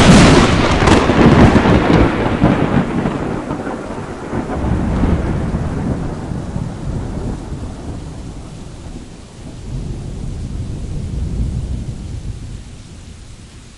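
A close thunderclap: a sudden sharp crack, then a long rolling rumble that fades, swells again about five seconds in and once more near ten seconds, and dies away.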